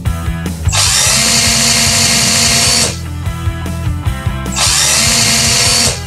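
Cordless drill driving the wall plate's mounting screws: two runs of steady motor whine, each about two seconds long, over background music.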